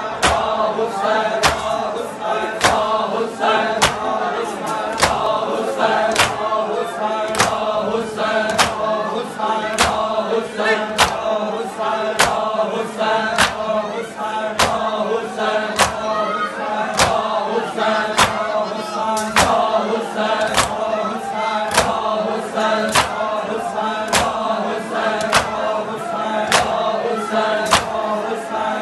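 Male voices chanting a noha together, with the crowd's bare-handed chest-beating (matam) landing in unison as sharp slaps a little under twice a second, keeping the beat of the lament.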